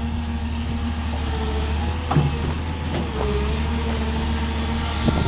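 Caterpillar excavator's diesel engine running steadily, a constant low drone with a fainter higher whine above it as the boom and bucket swing over the broken ice. A short sharp sound breaks in about two seconds in.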